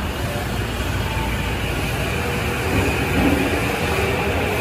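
Tobu 50000-series electric train pulling out of an underground station: a continuous rumble of the moving train, with a steady high tone over it.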